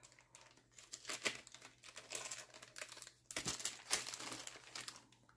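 Small clear plastic zip-top bags of beads crinkling and rustling as they are picked up and handled, with light irregular clicks of the beads shifting inside.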